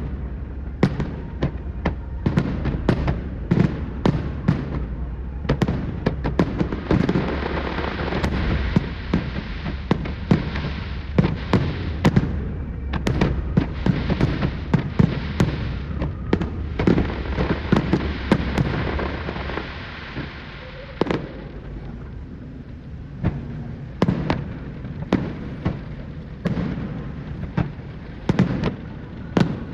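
Fireworks display: a long run of sharp bangs and pops, densest with a continuous hissing crackle from about 7 to 20 seconds in, then more spaced-out bangs.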